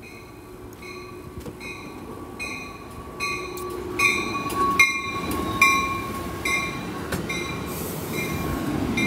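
Amtrak passenger train pulling into the station. A bell rings evenly, about one stroke every three-quarters of a second, over the growing rumble of the wheels and a thin steady squeal. The bell is loudest as the front of the train passes about four to six seconds in.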